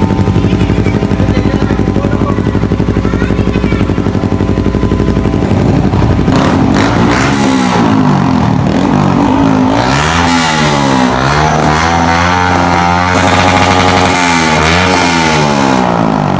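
Motorcycle engine running steadily, then revved again and again from about seven seconds in, its pitch climbing and falling several times.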